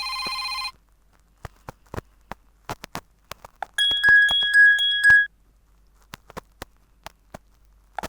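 Ringtones on a Fly FS458 Stratus 7 phone. A ringtone melody stops just under a second in, followed by scattered sharp clicks. A short high tone sounds for about a second and a half, swelling about three times, then more clicks come before the next ringtone starts at the very end.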